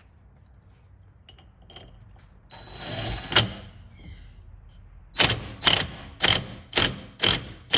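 Ratchet wrench working in short, even strokes, a sharp click about twice a second, tightening the bolts of a steering-wheel hub. A single louder click comes about three seconds in, before the steady strokes start.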